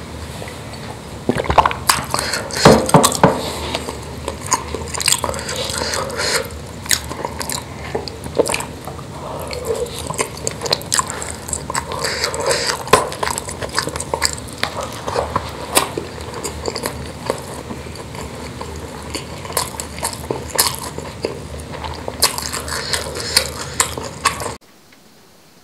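Close-miked eating of rice and spicy meatballs by hand: a swallow of water from a glass near the start, then steady chewing, wet mouth clicks and fingers scraping rice against a stainless steel tray. The sound cuts off suddenly near the end.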